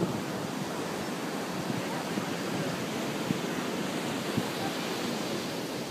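Steady rushing noise of surf and wind on a sandy beach.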